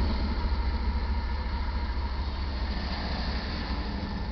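Low rumble of a departing iron ore train, fading steadily as it moves away.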